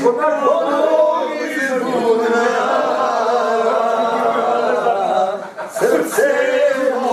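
Several men singing together without accompaniment, in long drawn-out notes, breaking off briefly about five and a half seconds in before starting again.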